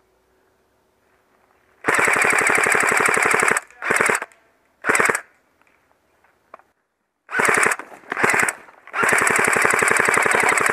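Airsoft electric rifle (the G4-A1) firing on full auto as rapid, evenly spaced mechanical clicks. It fires six bursts: a long burst about two seconds in, three short bursts, a fourth short burst, then another long burst near the end.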